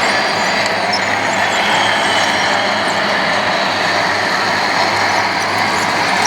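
Radio-controlled scale construction machines running steadily, a continuous mechanical noise with a faint low hum underneath and no distinct knocks.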